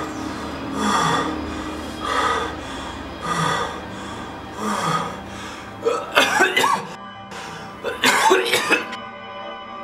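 A man gasping for breath in rhythmic gasps about once a second, then breaking into two fits of coughing and choking about six and eight seconds in, over background music.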